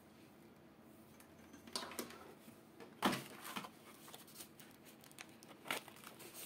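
Plastic and cardboard packaging being handled: crinkling and rustling in a few short bursts, the sharpest about three seconds in, after a quiet first second and a half.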